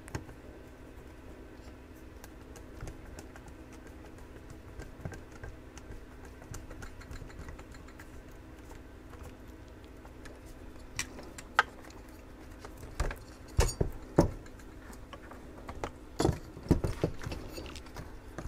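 Screwdriver working screws out of a metal power-supply case, then the case coming apart and being handled. Faint scraping and ticks come first, then a run of sharp clicks, knocks and rattles through the second half, over a faint steady hum.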